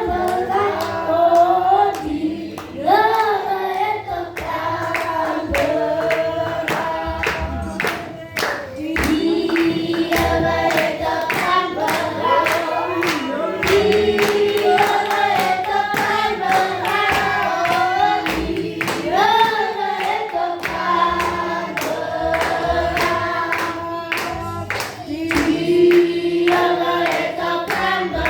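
A group of voices singing a church song together, with hands clapping in time to the beat.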